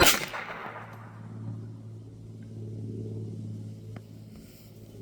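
A single shot from a Jimenez Arms JA22 .22 LR semi-automatic pistol right at the start, a sharp crack that rings off for about half a second, with a faint click about four seconds in. The slide does not come back to chamber the next round, a cycling failure the shooter puts down to the pistol needing oil. A steady low hum runs underneath.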